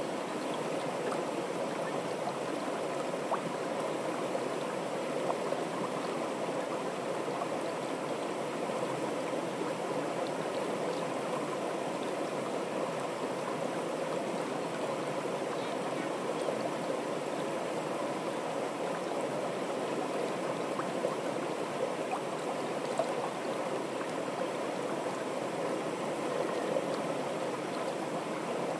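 Fast, shallow stream rushing down a narrow wooden-walled channel: a continuous, even rush of water.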